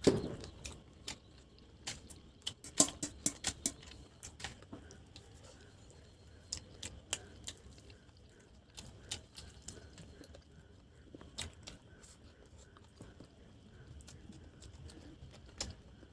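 A person eating by hand and chewing, with irregular wet mouth clicks and smacks. A quick run of louder clicks comes about three seconds in, and the rest is sparser.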